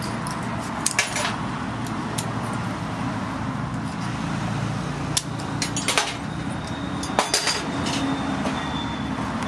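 Sharp metallic clicks in small clusters, about one second in, around five to six seconds in and around seven seconds in, over a steady low rumble.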